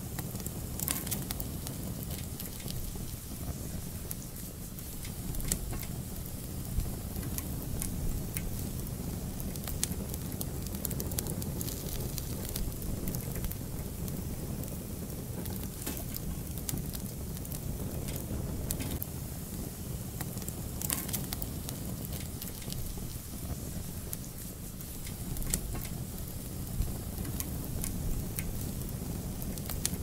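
Fire burning in a fireplace, with a steady low rumble and irregular crackles and pops scattered throughout.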